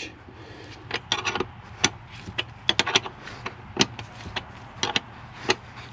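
Box-end wrench working a seat-mounting bolt as it is tightened: a dozen or so sharp metal clicks and clinks at irregular intervals.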